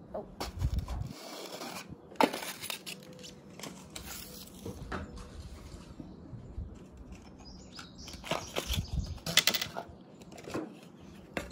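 Scattered light knocks and rustling of bowls being handled and set down on a glass tabletop, with a denser burst of clicks and rustle near the end.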